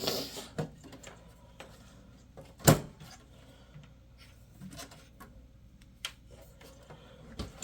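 Sound Blaster AWE32 ISA sound card being handled and pushed toward a motherboard slot. A brief scraping at the start, scattered light clicks, and one sharp, loud knock a little under three seconds in.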